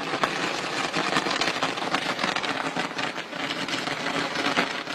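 A ladder-shaped firework burning upward with a steady, dense crackling and hissing, and a few sharper pops scattered through it.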